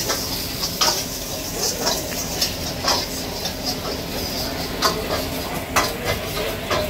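Steel ladle stirring and scraping in a wok, striking the pan with irregular metallic clinks about once a second, over a steady rushing background from the lit gas burner and frying.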